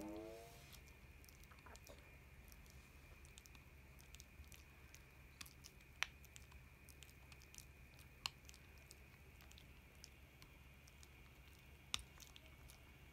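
Small dog (Chihuahua) gnawing on a chew bone held in a hand: faint, scattered clicks and crunches of teeth on the bone, with a few sharper clicks.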